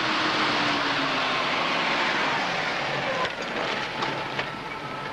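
Jeep Renegade driving up at night, its engine and tyres making a steady rushing noise, with the engine note falling over the first couple of seconds. A couple of light knocks come in the last two seconds.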